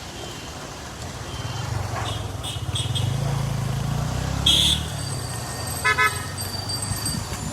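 Road traffic: a passing vehicle's engine rumble builds over the first few seconds. About halfway through comes a short, sharp high blast, and about six seconds in a vehicle horn gives two quick toots.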